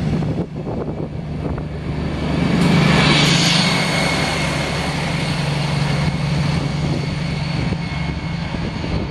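DB Class 218 diesel-hydraulic locomotive at the rear of a double-deck passenger train running past: a steady engine drone with a high whine, loudest as the locomotive passes about three seconds in, then easing off as it pulls away.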